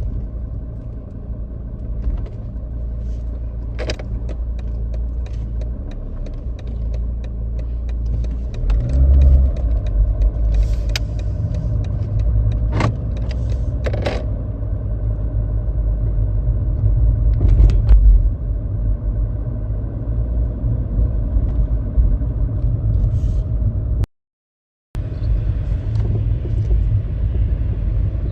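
Mercedes W203 cabin on a rough road: a steady low road rumble with irregular, sharp metallic knocks from the right front strut top mount. The knock is a sign that the mount's rubber bushing is torn.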